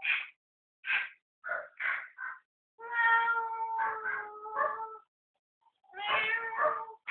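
Chihuahua's high yappy barks: five short ones in the first two and a half seconds, then long drawn-out wailing cries about three seconds in and again near the end.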